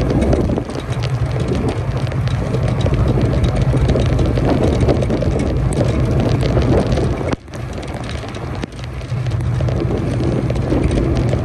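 Strong wind buffeting the microphone during a rainstorm, with a steady low drone underneath. The level drops sharply for a moment about seven seconds in, then builds back.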